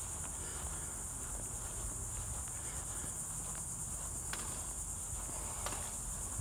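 A steady high-pitched insect chorus over a low rumble, with a couple of faint ticks about four and five and a half seconds in.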